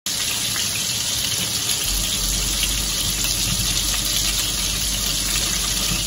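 Shrimp frying in a pan of hot oil, a steady sizzling hiss.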